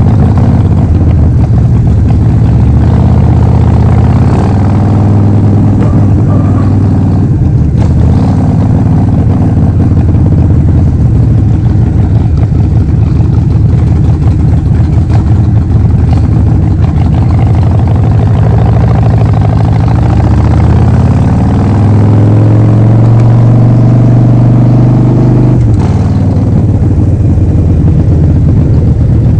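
Harley-Davidson Forty-Eight's 1200 cc air-cooled V-twin running through a Vance and Hines full exhaust system while riding, its deep note rising and falling with the throttle; the pitch climbs steadily over several seconds and drops sharply near the end.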